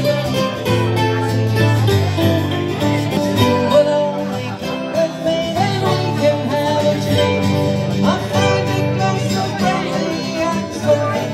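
Live acoustic folk music: a strummed acoustic guitar and a plucked mandolin playing together, with a woman singing.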